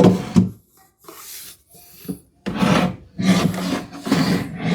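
A large wooden drawer being slid along its slides: a knock at the start, a few light scrapes, then rough rubbing and scraping over the last two seconds as it is pushed in.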